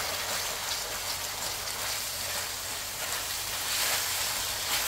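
Ground pork sizzling as it fries in a stainless steel pan, a steady hiss, with a slotted spatula stirring and scraping through the meat.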